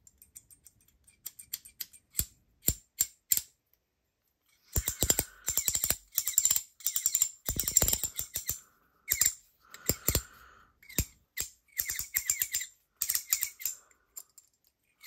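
Ratchet fidget coin (Hearthstone V2) being worked by hand: a few single clicks, then from about five seconds in, bursts of rapid ratchet clicking with a high squeak through them. The owner wonders whether the squeaking means he assembled it wrong.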